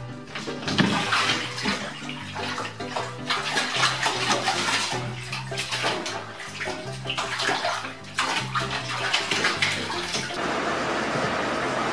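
A cat splashing in a bathtub full of water, its paws churning the water as it scrambles at the tub's edge to climb out, with music playing underneath.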